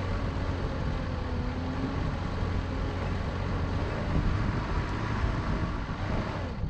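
Car driving: steady engine drone with heavy low rumble and rough running noise.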